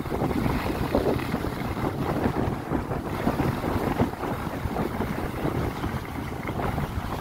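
Wind rushing over the microphone as the skier moves downhill, mixed with the steady scrape of skis running over groomed snow.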